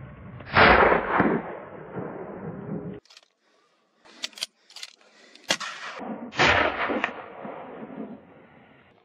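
Rifle shots at running wild boar. There are two loud shots, about half a second in and about six and a half seconds in, each followed by a long rolling echo, with a few sharper single cracks between them.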